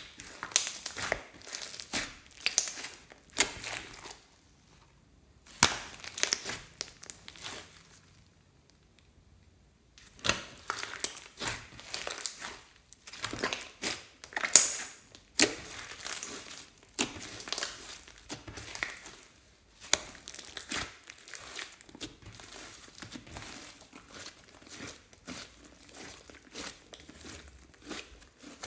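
Hands squeezing and kneading sticky glitter slime full of foam beads, giving bursts of wet crackling, crinkling and squishing. It goes in handfuls, with two short pauses of a second or two early on, then runs almost without a break.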